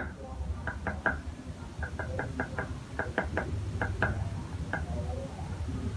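Cleaver blade chopping garlic on a round wooden chopping board: sharp knocks in irregular runs, several a second.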